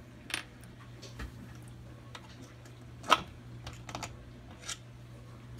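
Scattered light metallic clicks and taps of hand tools against a Kawasaki KE100 engine's crankcase while the case is worked apart, about six in all, the sharpest a little after three seconds in.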